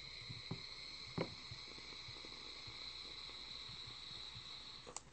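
Electronic cigarette being drawn on in one long drag: a faint, steady high hiss with a few small crackles of e-liquid vaporising on the coil. It cuts off with a short click about five seconds in.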